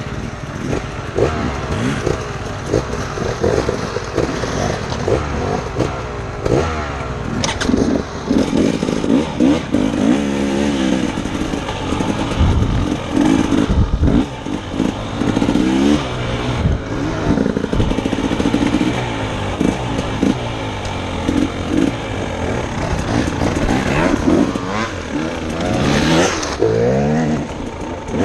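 Dirt bike engine heard from the rider's helmet, revving up and dropping back again and again as the bike is ridden along a gravel trail.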